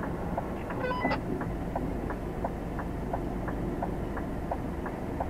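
A 44-tonne lorry's diesel engine running at low revs as the truck reverses slowly, with an even ticking about three times a second.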